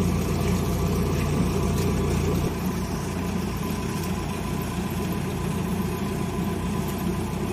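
Diesel engine of a Kubota combine harvester running steadily at idle, a steady low hum that drops slightly in level about two and a half seconds in.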